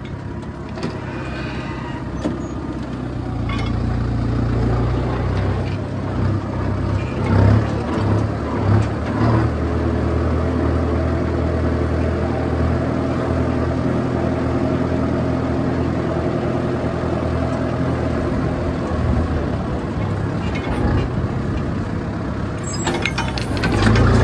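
Kubota M6240 tractor's diesel engine running steadily under load while pulling a disc plough through dry soil. The engine grows louder near the end.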